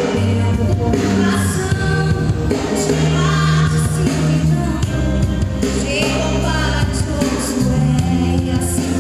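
Live gospel band music with singing: sustained bass notes under a sung vocal line, playing continuously.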